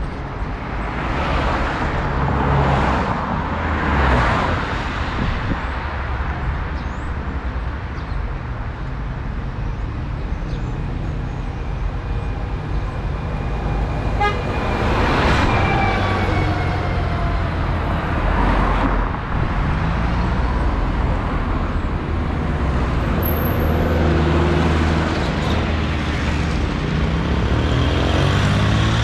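Street traffic driving past: several vehicles go by one after another over a steady low engine rumble, the loudest a city bus about halfway through, with a car and a motor scooter passing near the end.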